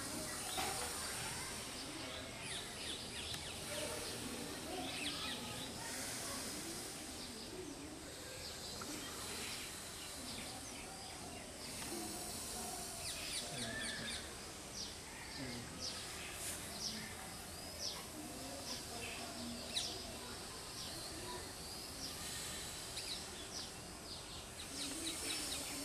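Birds chirping: many short, high chirps scattered throughout, over faint background noise.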